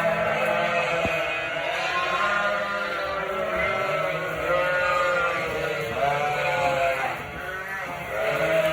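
A barn full of ewes and lambs bleating, many calls overlapping without a break.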